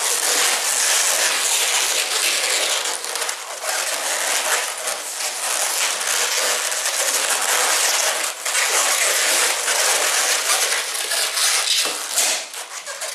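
Latex modelling balloons rubbing and squeaking against each other as a long blue balloon is twisted and wrapped around a body of red balloons, a continuous crackly rubbing with many small squeaks.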